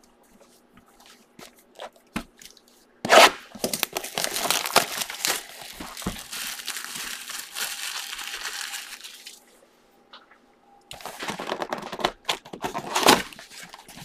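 Plastic wrap being torn and crinkled off a cardboard trading-card box, then the box's cardboard flap being pulled open. It starts suddenly about three seconds in and runs as dense crinkling for several seconds, pauses briefly, then comes back as more crackling with one sharp snap near the end.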